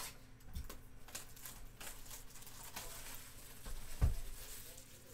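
Plastic shrink wrap being torn and crinkled off a cardboard trading-card box, with scattered light taps and rustles and one soft thump about four seconds in.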